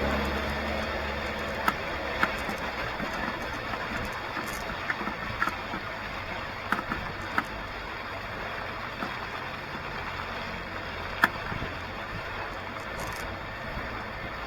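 A 4x4's engine running, loudest at the start and fading away over the first second or two, then a steady background hiss broken by scattered sharp clicks and knocks, the loudest about eleven seconds in.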